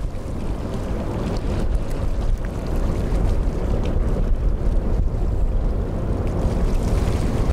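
Strong wind buffeting the microphone: a gusty low rumble that rises and falls unevenly throughout.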